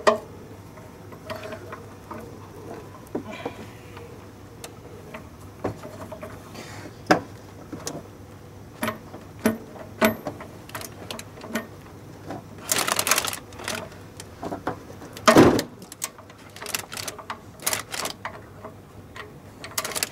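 Socket ratchet wrench loosening a car's oil drain bolt: scattered ratchet clicks and small metal clinks, with louder bursts of rapid clicking about two-thirds of the way through, the loudest near three-quarters in.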